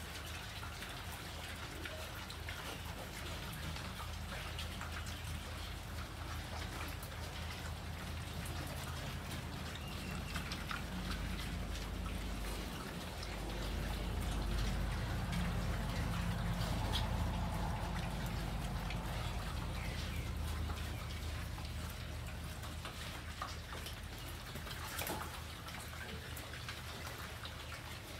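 A group of pigs chewing and crunching chopped green vegetables: a dense, steady patter of small clicks and smacks. A low rumble grows louder for several seconds in the middle.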